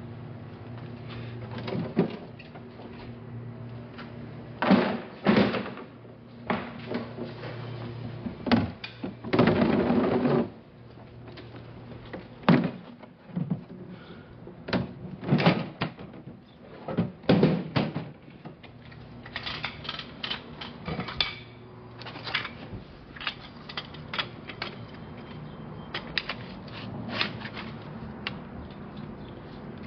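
Irregular clanks and knocks, some in quick clusters, as a metal expandable skate-wheel conveyor and black plastic totes are handled and set up by hand, over a steady low hum.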